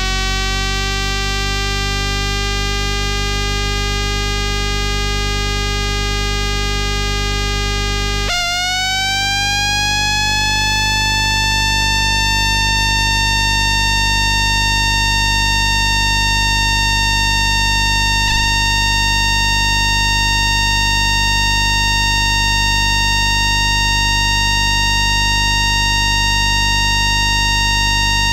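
Static converter of an FS ALe642 electric railcar, picked up electromagnetically by an inductor coil used as a microphone: a steady electrical hum under a stack of whining tones. About eight seconds in, the upper tones jump and glide upward over a couple of seconds as the converter starts up, then hold steady. There is a brief click about two-thirds of the way through.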